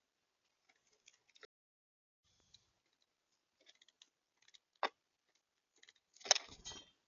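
Birds at a feeder pecking and scratching, heard close to the camera's microphone as scattered light clicks and taps. There is one sharp click just before five seconds, and a louder rustling burst near the end, such as a bird landing or fluttering at the feeder.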